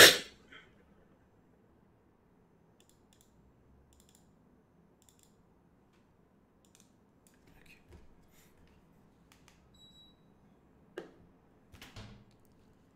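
Faint, scattered computer mouse clicks while navigating folders, with two stronger clicks or knocks near the end and one short, sharp, loud sound at the very start.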